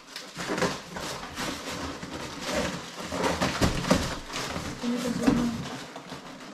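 Cardboard box flaps and a styrofoam packing insert being pulled, scraped and rubbed by hand while working a heavy dumbbell set loose: a continuous run of scratchy rustles and scrapes.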